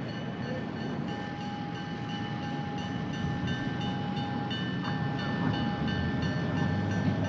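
Passenger train running on the rails: a steady rumble with a held high whine over it.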